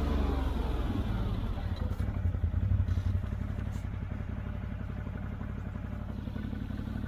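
CFMoto CForce 800 ATV's V-twin engine running, its revs falling away in the first second, then settling to a steady, lower-revving run from about three seconds in.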